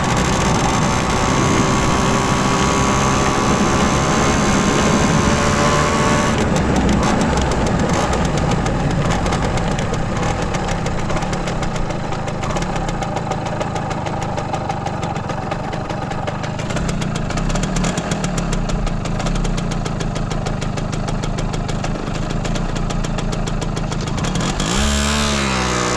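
Simson S51 moped's single-cylinder two-stroke engine running through its original exhaust, a steady fast popping beat; about a second before the end it is revved up quickly and drops back.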